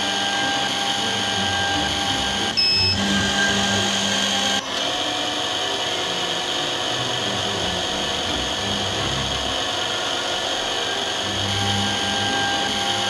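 CT 5412 automatic lens drilling machine running steadily as its drill spindle bores holes in an eyeglass lens. There is a louder stretch from about two and a half to four and a half seconds in.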